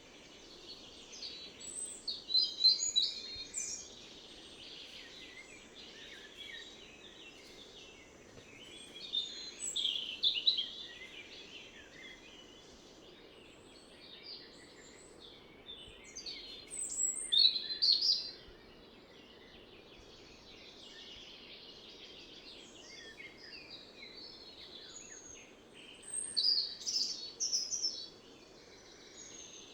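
A songbird singing short bursts of quick, high chirps and trills, four phrases about eight seconds apart, over the faint steady rush of the Cetina River.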